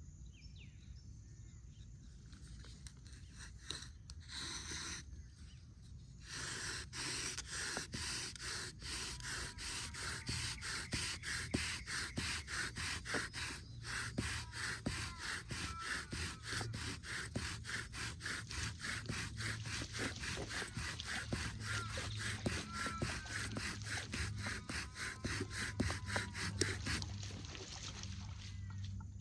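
Bow drill at work: a wooden spindle grinding in a wooden hearth board as the bow saws it back and forth in rapid, even strokes. There is a brief burst about four seconds in, then steady bowing that stops near the end, by which time the hearth is smoking as the ground wood dust heats toward an ember.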